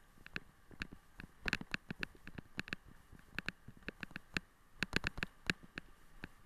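A dog-drawn bike jolting over a rutted dirt track: irregular knocks and rattles, several a second, in uneven clusters.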